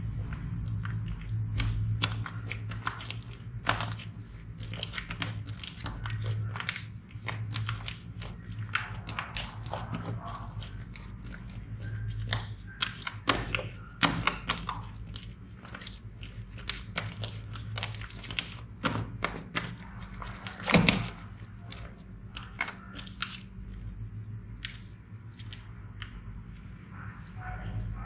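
Slime being squished and pressed by hand, making irregular sticky clicks and crackles, with one louder pop about two-thirds of the way through, over a steady low hum.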